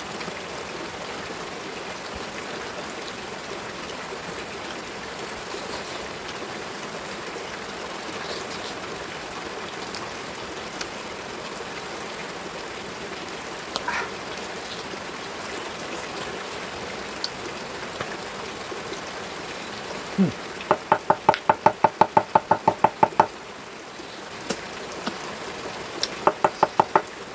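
Steady hiss with a few faint clicks, then about three-quarters through a quick run of around fifteen sharp, ringing knocks, about five a second, and a shorter run of knocks near the end.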